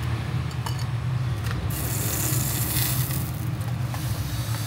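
Kitchen work at a bank of clay dizi pots: a few light clinks as the pots are handled and a brief hiss about two seconds in, over a steady low hum.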